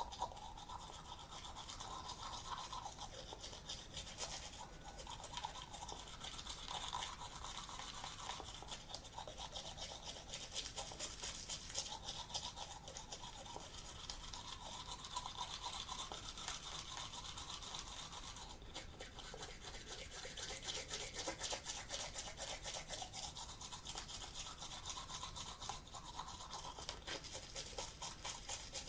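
Toothbrush scrubbing back and forth over teeth in quick, continuous strokes.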